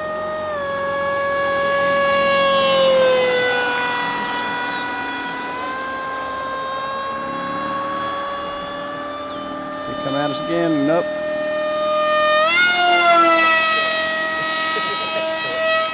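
Electric motor and propeller of an RC foam plane whining in flight, its pitch shifting with the throttle. It drops about half a second in, sags a little later, climbs again, and rises sharply about twelve seconds in.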